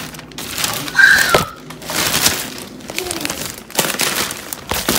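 Plastic grocery bags and food packaging rustling and crinkling as items are pulled out and handled, with the loudest rustle about a second in.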